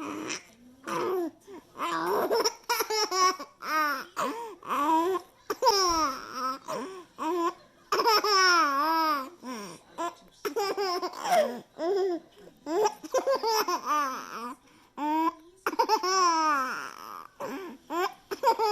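A baby vocalizing in a string of high-pitched bursts, babbling and laughing, each lasting up to about a second with short pauses between.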